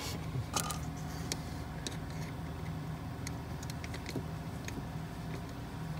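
Scattered light metallic clicks and scrapes of a screwdriver tightening a hose clamp on a fuel filter line, over a steady low hum.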